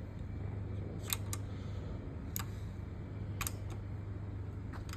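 A hand wrench clicking, about six sharp clicks at uneven spacing, some in quick pairs, as the ARP head stud nuts on a VQ35DE engine are torqued toward 30 ft-lb. A steady low hum runs underneath.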